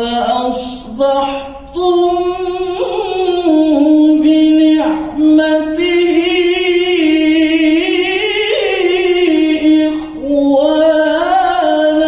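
A male qari reciting the Quran in the melodic tilawah style into a microphone: long held notes with wavering, ornamented pitch, broken by short breaths about two, five and ten seconds in.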